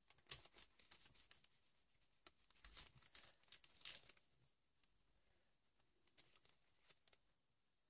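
Faint rustling and rubbing of fingertips working paint across a paper journal page, in irregular strokes over the first half, then near silence with a few faint ticks.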